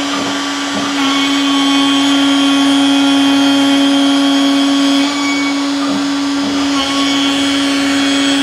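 A CNC router spindle, set to speed 3, spinning a surfacing bit as it sweeps quickly across a wood slab and planes the top flat. The motor gives a steady hum, and the cutting sound grows louder about a second in, dips around five seconds and returns near seven as the bit passes over the wood.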